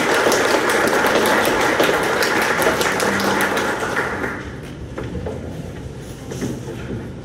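Audience applauding, a dense patter of many hands clapping that dies down about four seconds in, leaving scattered claps and room noise.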